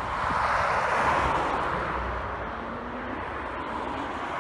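A road vehicle passing close by: its tyre and road noise swells to a peak about a second in, then fades away.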